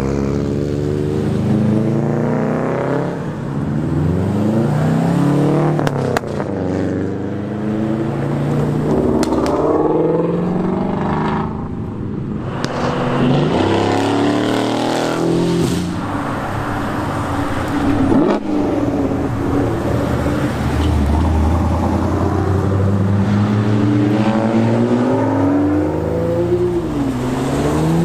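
Car engines revving and accelerating as cars drive past one after another, their pitch rising and falling repeatedly.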